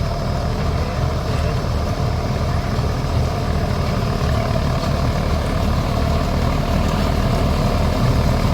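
Rice combine harvester running steadily, its heavy engine and machinery making a continuous low drone.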